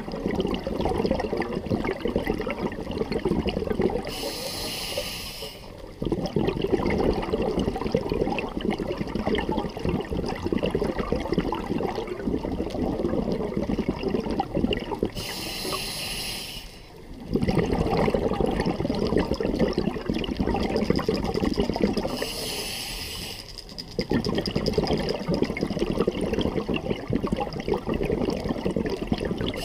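Scuba diver breathing through an open-circuit regulator: three hissing inhales of about a second and a half, each followed by a long bubbling exhale.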